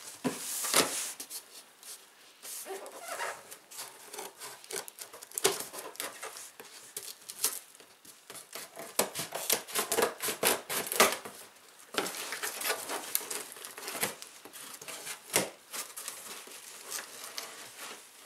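Scissors cutting and slicing through plastic packing tape on a cardboard box: irregular snips, scrapes and crinkling of tape against the cardboard.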